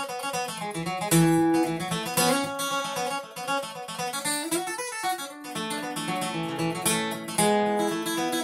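Steel-string acoustic guitar played in bluegrass style, picked notes and strummed chords at a steady pulse.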